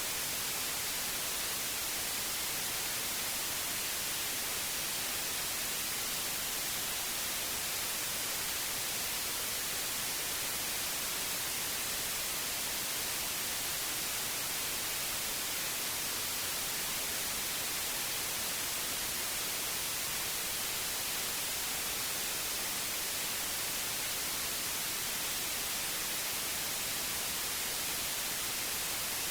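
Steady white noise: an even, unchanging hiss, brightest in the high range.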